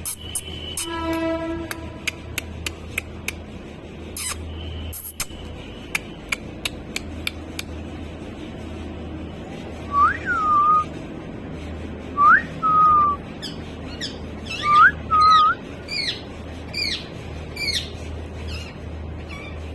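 Parrot whistling and chirping: a held call about a second in, then several short whistles that rise and fall back from about halfway, and quick downward chirps near the end, with scattered sharp clicks throughout.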